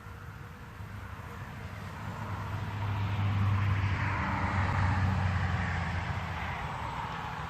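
A motor vehicle passing by: a low engine hum and road noise that swell to a peak around the middle and then fade away.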